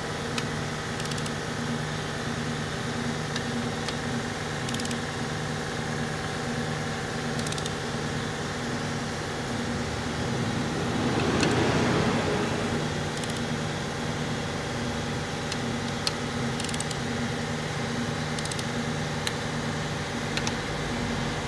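A steady mechanical hum from machinery runs throughout, broken by a dozen or so short, sharp clicks from a click-type torque wrench on the cylinder head bolts: each click marks a bolt reaching its set torque. About halfway through, a louder rushing noise swells for a second or two.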